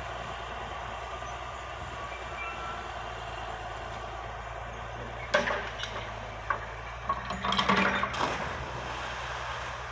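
Bucyrus dragline excavator's engine running steadily, with a burst of metal clanking and rattling from the bucket's chains and rigging about five to eight seconds in as the bucket is swung out.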